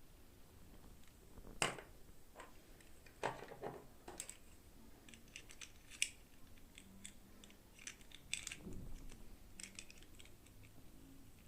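Hands handling small plastic toy pieces and packaging during an unboxing: scattered light clicks, taps and short rustles, with sharper clicks about a second and a half in, at about three seconds and at about six seconds.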